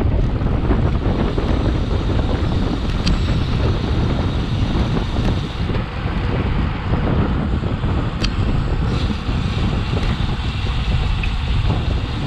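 Wind buffeting an action camera's microphone while riding a road bike at speed in a group: a loud, steady low rumble, with a couple of faint clicks.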